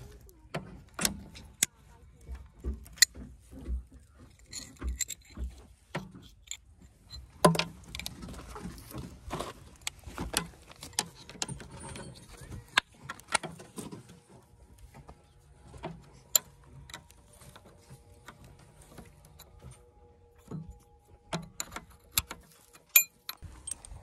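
Hand tools clinking and scraping on the rusty steel pivot pin of a backhoe bucket: pliers and a spanner working at the pin's retainer, with irregular sharp metallic clicks and knocks.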